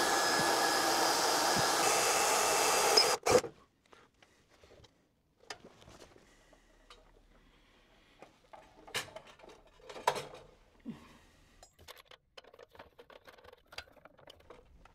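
A steady whir, like a small power tool, cuts off abruptly about three seconds in. After that, faint scattered clicks and rustles as hands move cables inside a machine's electrical cabinet.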